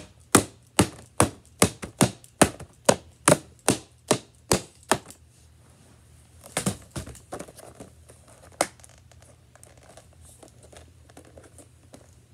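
A plastic toy lightsaber blade strikes a hard plastic blister package over and over, about two and a half sharp whacks a second, to beat the package open. The hitting stops about five seconds in. Two more single whacks follow, then faint crinkling of the plastic pack being handled.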